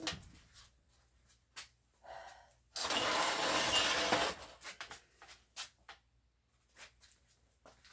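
Knocks and clicks of a bicycle being handled and turned around. A loud rasping, rustling burst starts suddenly about three seconds in and lasts about a second and a half.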